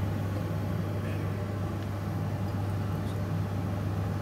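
A steady low mechanical hum with an even background hiss and no distinct events.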